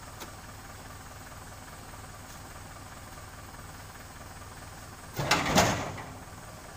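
An oil palm fruit bunch thrown into a steel truck bed lands with one loud thud about five seconds in, lasting under a second, over a steady low background hum.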